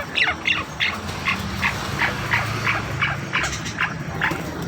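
Javan hill-partridge (puyuh gonggong Jawa) calling: a rapid series of short, falling notes, about three a second, over a low steady hum.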